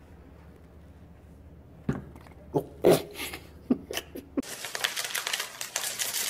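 A few sharp knocks and thumps against a carpeted cat tree, followed near the end by dry cereal flakes pouring into a plastic bowl in a dense crackling rattle.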